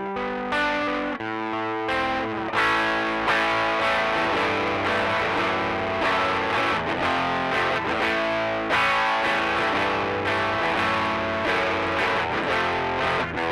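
Electric guitar played through a Rocktron Austin Gold overdrive pedal with the drive at 12 o'clock and the pre-bass at 9 o'clock, giving a light overdriven tone. A few picked notes give way about two seconds in to ringing chords, struck again and again.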